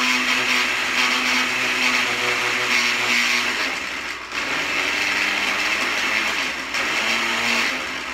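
Countertop jug blender running at speed, pureeing a thick green smoothie of frozen banana, spinach, avocado and milk. The motor's pitch drops a little about halfway through, with a brief dip, then it runs on and cuts off at the end.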